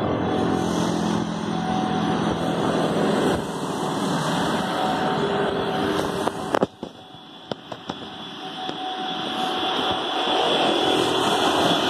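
Road traffic passing close by, motorcycles among it, a steady running rumble. A few sharp knocks come about halfway through, and the noise then drops suddenly before building back up as more traffic approaches.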